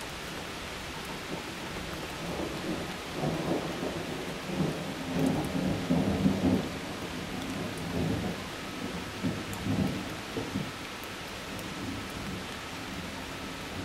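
Rolling thunder over steady rain. The rumble builds about two seconds in, is loudest around the middle, and dies away before the end, while the rain keeps up a steady hiss.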